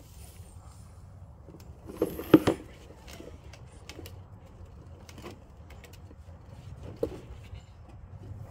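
Hollow plastic knocks and clatter from a ride-on toy dump truck as its plastic dump bed is tipped up: a quick cluster of sharp knocks about two seconds in, then one smaller knock near the end.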